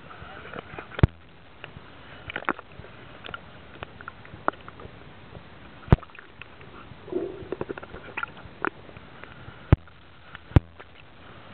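Underwater sound picked up by a camera: a steady water hiss broken by scattered sharp clicks and knocks, the loudest about a second in, about six seconds in and twice near the end, with a brief burst of lower sound about seven seconds in.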